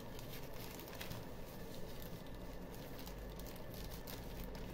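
Faint crinkling and rustling of a thin clear plastic bag as a folded cloth dish towel is slid into it, a scatter of small, light crackles.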